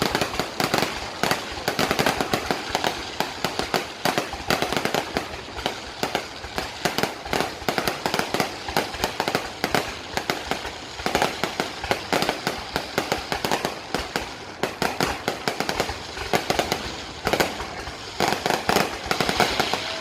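Fireworks going off: a dense, unbroken run of sharp bangs and crackles, several a second, for the whole stretch.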